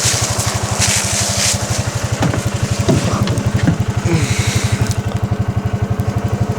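Gator utility vehicle's engine running steadily while driving, a fast even low pulsing.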